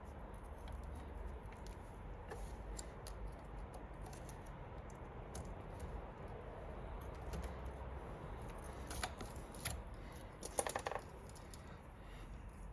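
Light clicks and rattles from the bicycle chain, split link and tools being handled, with a quick run of sharper clicks about ten and a half seconds in.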